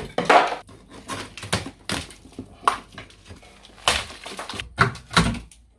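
Renovation work with hand tools: a dozen or so sharp knocks and clatters at uneven spacing, like hammer blows and loose material being knocked about, with softer scraping and clattering between them.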